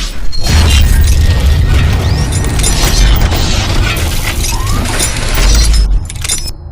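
Intro sound effect: a loud crash of shattering glass over heavy booming bass and music, cutting off sharply near the end.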